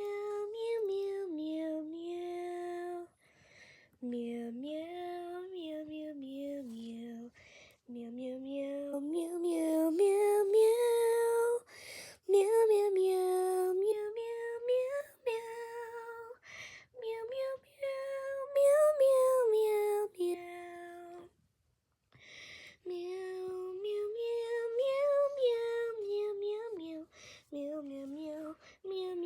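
A female voice singing a melody unaccompanied in short, repeated 'meow' syllables, imitating a cat, with brief pauses between phrases.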